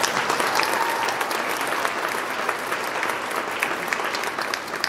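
Audience applauding, many hands clapping at once; it holds steady and eases slightly near the end.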